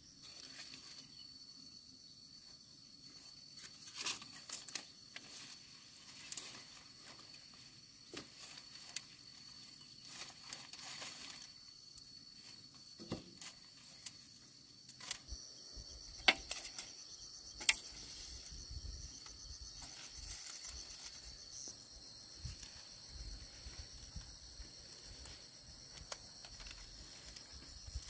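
Dry bamboo poles knocking and clattering now and then as a bamboo fence is pulled down and handled, with the sharpest knocks about four, sixteen and seventeen seconds in. A steady high-pitched insect drone runs behind.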